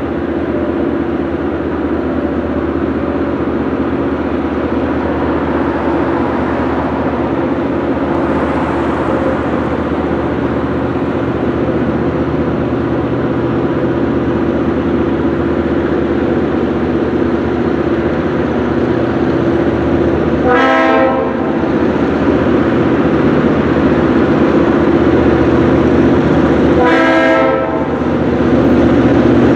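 Two EMD GP38-2 diesel locomotives, each with a 16-cylinder 645 engine, working hard at full throttle (notch 8) upgrade with a heavy freight. The steady engine drone grows louder as they approach. The horn sounds in short blasts about two-thirds of the way through and again near the end.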